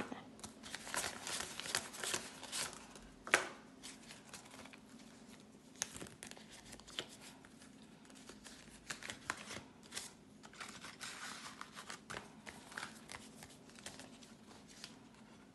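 Paper banknotes and a paper cash envelope rustling and crinkling as they are handled and counted, in irregular soft crackles, with one sharper click about three seconds in.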